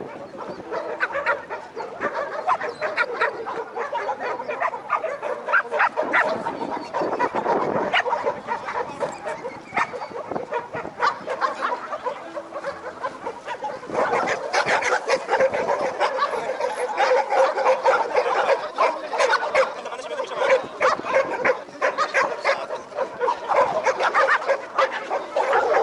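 Many dogs barking and yelping at once, the barks overlapping continuously; the barking grows louder and busier about halfway through.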